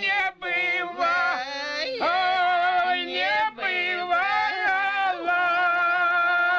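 Elderly Don Cossack men and women singing a traditional polyphonic folk song unaccompanied. The voices draw out the syllables in long sliding lines and settle onto a held chord about five seconds in.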